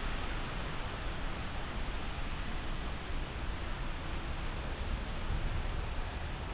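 Steady background hiss with a low rumble and no distinct events: outdoor ambient noise.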